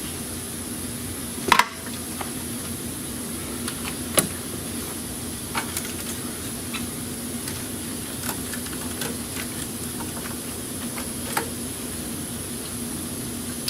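Scattered light clicks and knocks of parts and hand tools being handled while refitting a thermostat housing in an engine bay, the loudest about a second and a half in, over a steady background hum.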